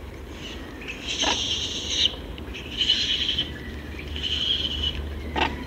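Rhesus macaques fighting: three harsh, high calls of half a second to a second each, then a sharp crack shortly before the end.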